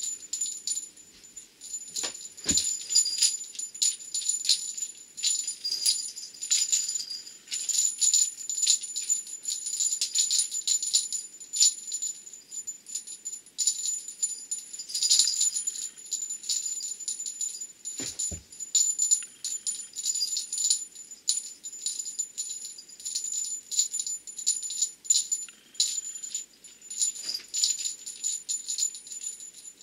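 Small metal bell on a cat wand toy jingling and rattling as the toy is swung and jerked about. Two soft thumps come in, one a couple of seconds in and one a little past the middle.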